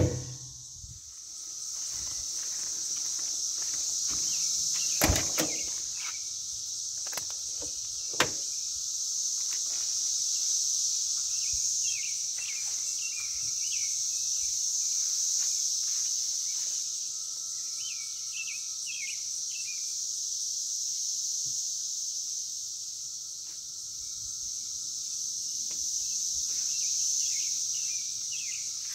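Steady high insect drone with scattered bird chirps, and a few sharp clicks about five and eight seconds in as the car door is opened.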